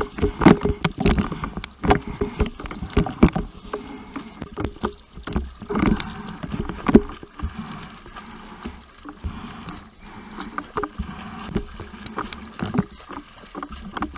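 Water splashing and sloshing close to the microphone in uneven strokes, as a person swims through the sea.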